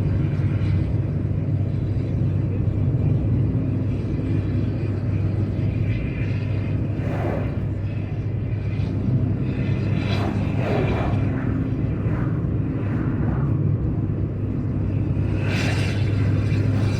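Volkswagen Constellation truck's diesel engine running steadily on the highway, a constant low rumble. A few brief swells of noise pass over it.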